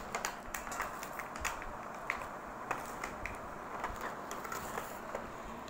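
Cardboard and clear plastic packaging being handled as a camera box is opened: irregular small clicks and crinkles, several a second.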